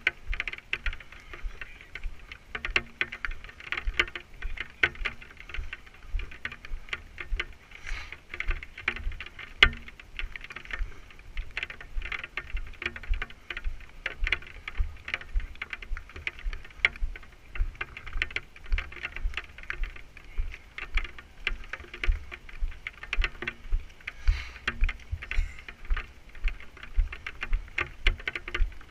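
Footsteps at a walking pace, about two a second, picked up as low thumps and clicks by a camera carried on the walker, with rain pattering.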